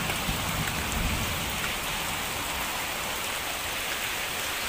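Steady rain falling, a dense even hiss of drops hitting the ground and surfaces.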